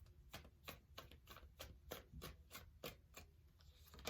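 Tarot deck being shuffled by hand: a faint run of soft card clicks, about three a second.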